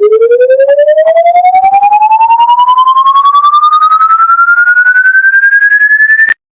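An electronic test tone sliding steadily up in pitch from a low hum to a high whine, pulsing rapidly all the way. It cuts off suddenly near the end.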